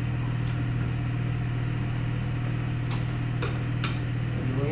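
Steady low machine hum at one even pitch, with a few faint light clicks about three seconds in.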